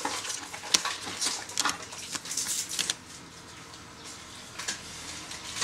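Trading cards being handled and flipped through by hand: quick rustles and light snaps of card against card, many in the first three seconds, then fewer and quieter.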